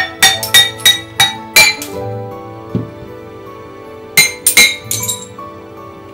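Hammer chipping the edge of a thick glass strip: six sharp clinking strikes in quick succession over the first two seconds, then three or four more about four seconds in.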